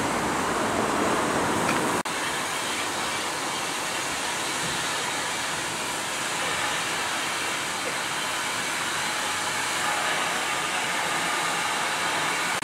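Steady hiss of steam from standing steam tank locomotives, with a brief break about two seconds in.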